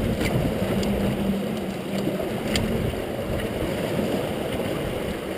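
Water rushing and churning through a rotary screw fish trap as its perforated cone turns, a steady low rumble with a few light clicks.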